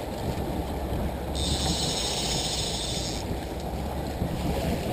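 Steady wind rumble on the microphone mixed with the running boat and water noise, with a high-pitched buzz a little over a second in that lasts about two seconds.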